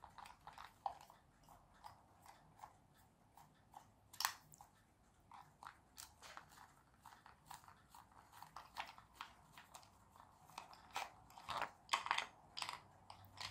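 A small screwdriver working screws out of a plastic toy truck chassis, and the plastic parts being handled and pulled apart: faint scattered clicks and plastic creaks. There is a sharper crack about four seconds in and a busier run of clicks near the end.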